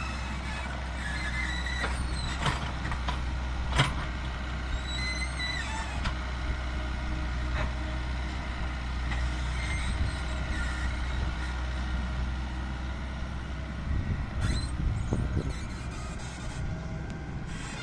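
Excavator working on a road job: its diesel engine runs with a steady low hum, while high metallic squeals and a few sharp knocks come from the machine's moving parts, the loudest knock about four seconds in.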